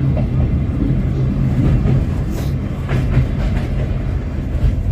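Sagano sightseeing train car running along the track: a steady low rumble and hum from the moving car, with a few short rattles and knocks from about two seconds in.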